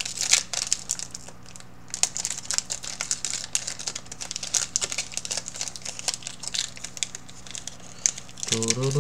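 Foil Yu-Gi-Oh booster-pack wrapper crinkling and crackling in the hands, many quick irregular crackles as the pack is handled.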